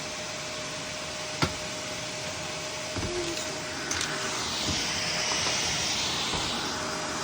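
Shark vacuum cleaner running steadily with a constant hum and airflow hiss. There is a single sharp click about a second and a half in, and the high-pitched airflow hiss swells in the second half.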